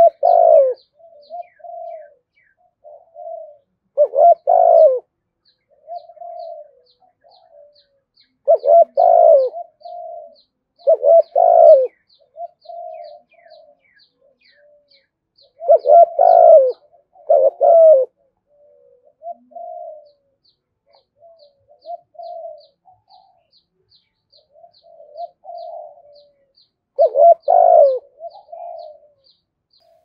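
Spotted dove cooing: loud double coos about every two to five seconds, with softer short coos between them. A faint, rapid high ticking runs behind.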